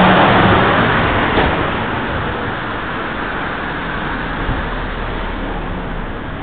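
A passing vehicle fading away over the first couple of seconds, then a steady rushing noise.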